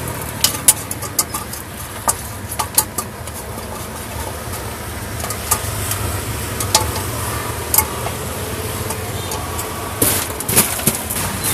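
Long metal scraper blade knocking and scraping on the steel tray of a popcorn cart as fresh popcorn is spread out: irregular sharp metal clicks, with a cluster near the end. A steady low engine hum runs underneath.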